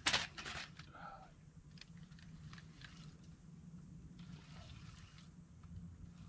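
A sharp knock right at the start, then faint, irregular clicks and rustles of a spinning reel being cranked as a hooked fish is reeled in, over a steady low hum.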